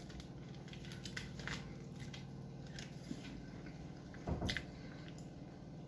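Close-miked chewing with the mouth closed: soft, wet mouth sounds and small clicks as a mouthful of food is chewed, with one brief louder sound about four and a half seconds in.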